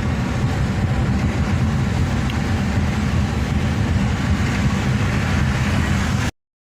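Steady rumble and road noise of a vehicle travelling along a road, cutting off abruptly near the end.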